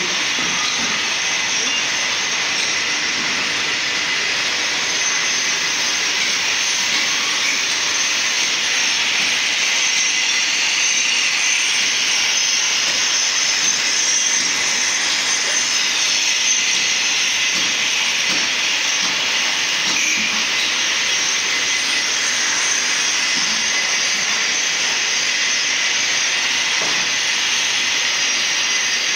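Corded power tools grinding a concrete floor, a steady loud grinding hiss that runs without a break as the old floor surface is worn away.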